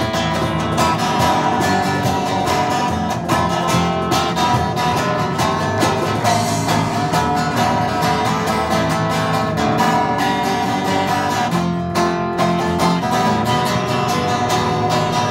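Live band music: an instrumental passage with acoustic guitar strummed over electric bass, at a steady level.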